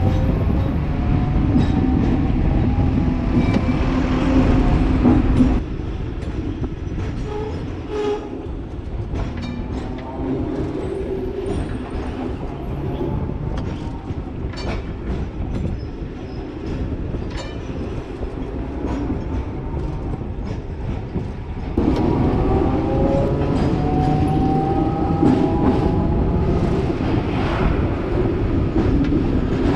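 Hong Kong double-decker electric tram running, heard from the driver's cab: a low rumble of steel wheels on the rails with a rising motor whine, and scattered clicks over the track. It is louder at the start and again from about twenty-two seconds in, quieter in between.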